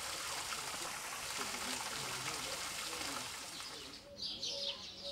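Fountain jet splashing into its basin, a steady hiss of falling water. About four seconds in this gives way to small birds chirping in the trees, short high calls repeated several times.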